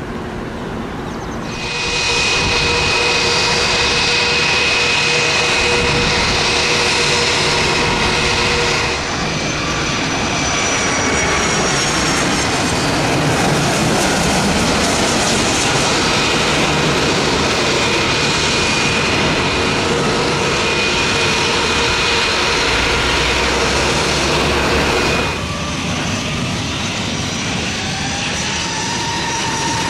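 Jet airliner engines whining steadily on approach, with sharp edits to different aircraft: a small business jet, then an American Airlines Boeing 757 as it lands. For the last few seconds a LIAT ATR 72 turboprop's engines and propellers drone, with a tone rising slightly in pitch.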